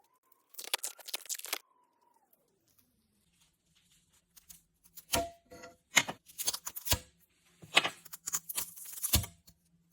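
A slow synthetic tone rising and falling at the start, then, from about five seconds in, irregular short scraping and rubbing strokes from cleaning a freshly set tile shower-tray curb.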